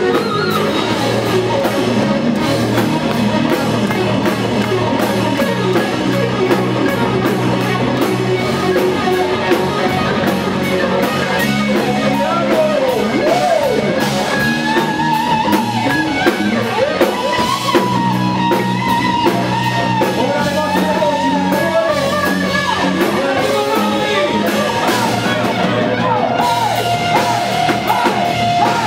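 Live power metal band playing loud: electric guitars, bass guitar and drum kit, with melodic lead lines over a steady drum beat.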